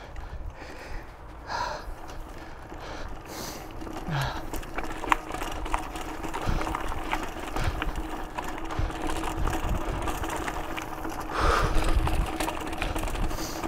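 Mountain bike rolling over a dirt trail: a steady buzz from the rear freewheel hub ratcheting as it coasts, over tyre rumble, with scattered knocks and rattles from bumps that are loudest about eleven seconds in.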